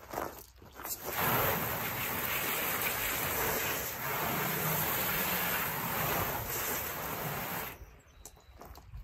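Garden hose spray nozzle jetting water into the plastic basin of a half IBC tote, rinsing it out. The spray starts about a second in, dips briefly midway and stops near the end.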